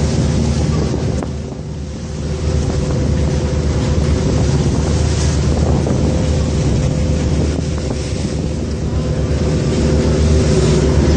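Motorized outrigger boat's engine running at a steady drone, with wind buffeting the microphone and water rushing past the hull.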